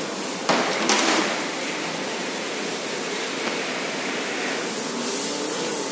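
Two sharp clanks of a metal hand tool, about half a second apart, against a steady workshop hiss.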